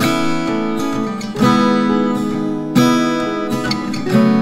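Background music: acoustic guitar strumming chords, a new chord struck about every second and a half and left ringing.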